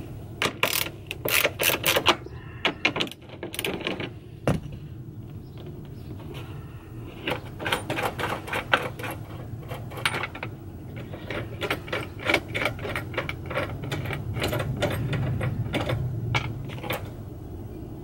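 Socket ratchet clicking in quick bursts as bolts are backed out of the van's floor platform, with one sharp single click about four and a half seconds in.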